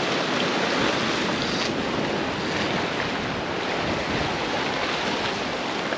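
Seawater surging and washing through a narrow rock gully on a rocky shore, a steady rushing wash.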